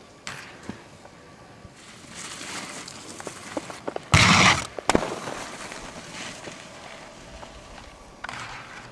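Skis sliding and scraping over snow and a terrain-park box, with a loud rushing scrape about four seconds in and a few sharp clicks. Another scrape starts near the end as the skis meet a small rail.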